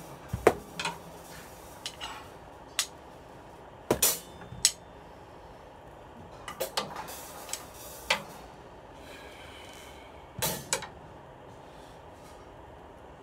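Drumsticks tapping sparsely on a drum kit, some strokes on a wooden block mounted beside the toms: scattered short, irregular clicks and knocks, a few in quick clusters, stopping about eleven seconds in.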